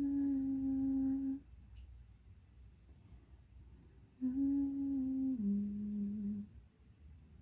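A person humming a slow tune softly in long held notes: one note for about a second and a half, then after a pause of a few seconds two more notes, the second one lower.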